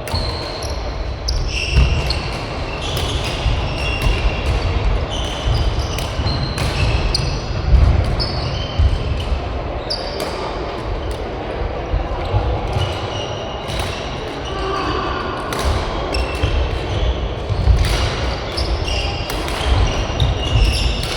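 Badminton doubles rally on a sports hall court: sharp cracks of rackets striking the shuttlecock, short high squeaks of shoes on the court floor, and frequent heavy thuds of players' footsteps.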